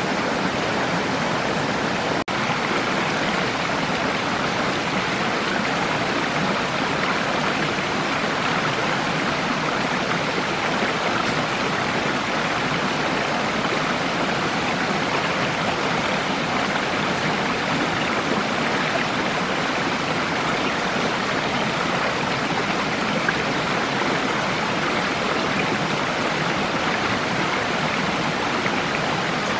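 Flowing stream water, a steady, unbroken rush.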